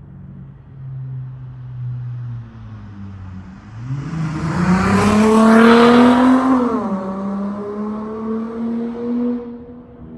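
Dodge Charger SXT with a Flowmaster Super 10 exhaust accelerating past. The exhaust note climbs in pitch and grows loud over about two seconds, then drops sharply and holds a steadier, lower drone that fades near the end.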